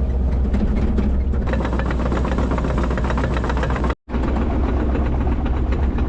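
Excavator's diesel engine running steadily with a deep rumble and rapid clatter. It breaks off for a moment just under four seconds in, then carries on.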